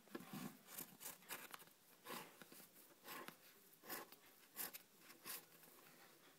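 Faint short strokes of a black marker tracing around a template on felt, one every half second to a second, unevenly spaced.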